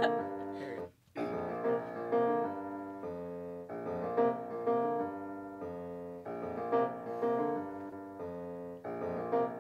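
Piano accompaniment playing the introduction to the song, a steady pattern of repeated chords. It cuts out briefly about a second in, then picks up again.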